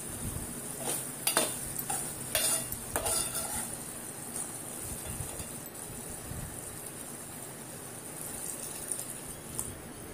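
A metal spoon scraping and clinking against a metal pot as it stirs a thick onion-tomato masala, over the steady sizzle of the mixture cooking. The stirring strokes fall in the first few seconds; after that the sizzle goes on mostly alone.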